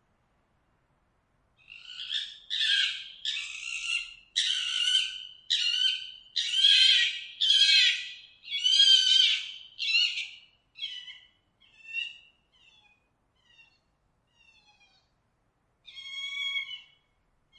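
Fox calling: a run of about ten harsh, high calls roughly one a second, then fainter ones trailing off, and one more call near the end.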